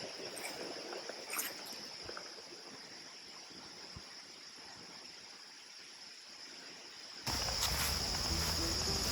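Insects chirring steadily in a high, continuous band, with a few faint rustles or ticks in the first couple of seconds. About seven seconds in, background music comes in and is louder than the insects.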